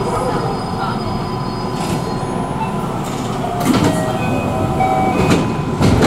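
Electric commuter train running slowly, heard from just behind the driver's cab: a steady rumble with faint whining tones, and a couple of heavier knocks from the wheels and running gear, one about halfway through and one near the end.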